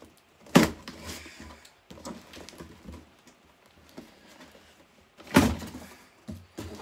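A cardboard shipping box being cut and pried open by hand, with small scrapes and clicks of a blade working the cardboard. Two loud, sharp cardboard noises stand out, about half a second in and again about five seconds in.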